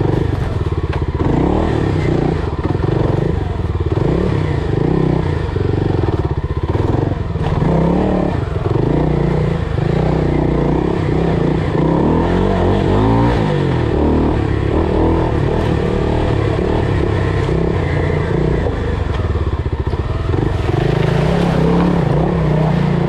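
FPV quadcopter's electric motors buzzing steadily, their pitch rising and falling as the throttle changes, over a rush of wind noise.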